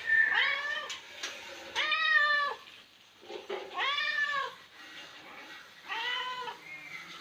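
A domestic cat meowing four times, about two seconds apart, each meow rising and then falling in pitch.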